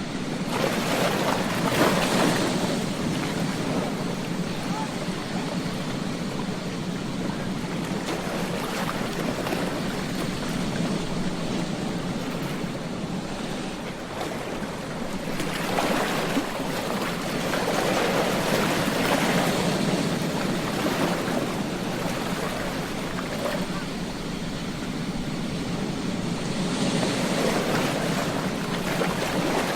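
Ocean waves breaking on a beach, a steady wash of surf that swells three times as waves come in and then ebbs between them.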